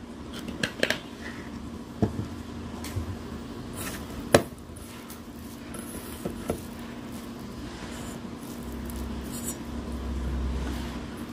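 Chicken momo filling being mixed by hand in a steel bowl: a handful of light clicks and knocks against the metal, the sharpest about four seconds in, over a steady low hum.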